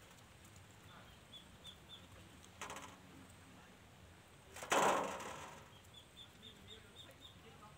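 Puppies nosing at a large metal feeding pan on the ground: a brief clatter about two and a half seconds in, then a louder knock with a tail that dies away over about a second near the five-second mark. A small bird's repeated high chirps come in two short runs in the background.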